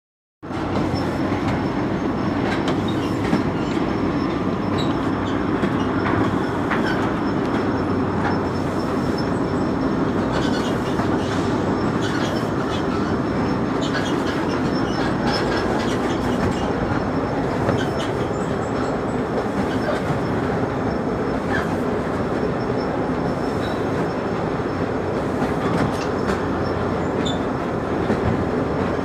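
Belt conveyor of a cement-bag truck loader running steadily, with scattered short knocks over the machine noise.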